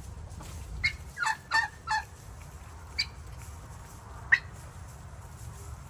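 Hens clucking and squawking as they are fed: about six short, sharp calls, the loudest one near the end.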